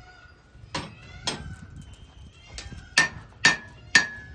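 Blacksmith's hand hammer striking iron held in tongs on an anvil: two blows about a second in, then a steady run of blows about two a second near the end. Each blow rings briefly.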